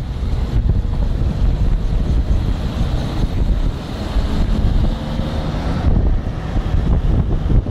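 Loud wind noise buffeting a phone's microphone in a moving car: a steady, rumbling rush heaviest in the low end, mixed with the car's travel noise.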